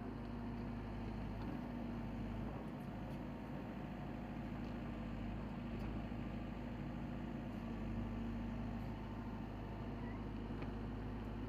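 Cat 422F backhoe loader's diesel engine running steadily while the backhoe digs.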